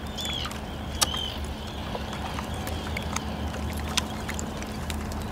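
Outdoor ambience beside an ice-filled lagoon: a steady low hum with scattered sharp clicks, two of them louder about a second in and near the end, and a few short high chirps near the start.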